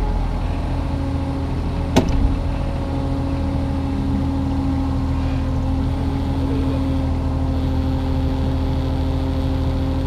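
Kubota mini excavator's diesel engine running steadily, with a steady hum over the low rumble. A sharp clank about two seconds in, with a smaller one just after.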